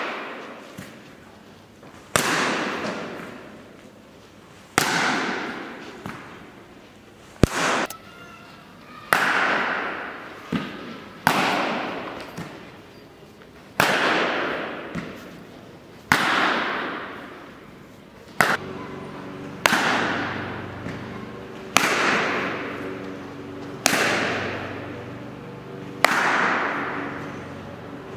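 A cricket bat striking weighted training balls about every two seconds, each sharp crack followed by a long echo in the large indoor net hall, with a few lighter knocks in between.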